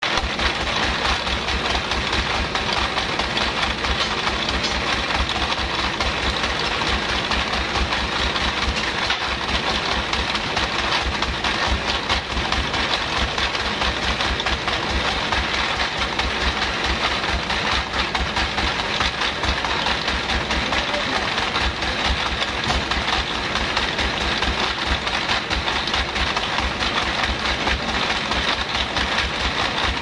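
Large band sawmill's machinery running steadily: a constant mechanical drone with a fast low throb underneath.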